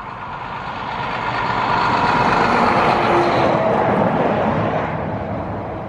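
A road vehicle passing by, growing louder to a peak around the middle and then fading away.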